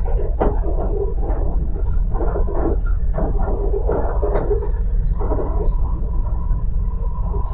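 Passenger train running, heard from inside the carriage: a steady low rumble with irregular clatter from the wheels and track. About five seconds in, a steady high whine joins and holds.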